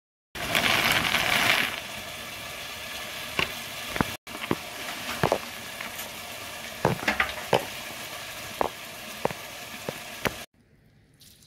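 Soya chunks in hot water in a steel pot: a steady bubbling hiss, with a metal spoon stirring and clinking sharply against the pot about ten times. The hiss is louder in the first second or so and cuts off suddenly near the end.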